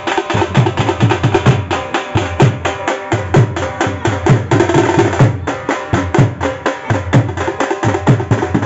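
Pahari band baje drumming: dhol drums beaten with sticks in a fast, driving rhythm, deep strokes about twice a second under quicker sharp strokes, with a steady pitched note held underneath.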